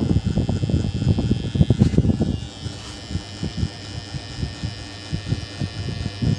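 Electric hair clippers running with a steady high hum as they trim around the ear, over rough low crackling that is heavier for the first two seconds or so and lighter after.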